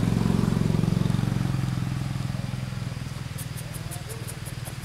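A motor vehicle's engine running nearby: a low, steady hum that is loudest in the first second or so and then slowly fades as it moves away. Near the end there is a quick run of faint high ticks, about six a second.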